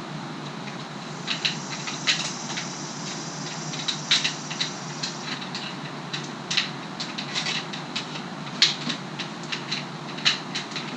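Dropper post cable housing being fed through an access hole into a mountain bike frame's seat tube: irregular light clicks and ticks as it taps and rubs against the frame, with a scraping hiss from about a second in to halfway through.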